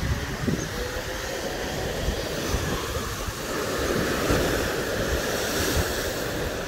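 Strong wind buffeting the microphone in irregular low gusts over the wash of surf on a beach, the surf swelling louder around the middle.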